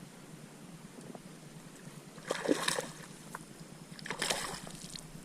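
Water splashing twice beside a kayak, about two seconds in and again about four seconds in, over a low background.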